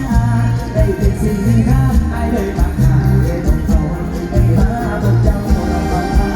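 Live mor lam band music with a heavy bass line and a steady drum beat under a wavering melody.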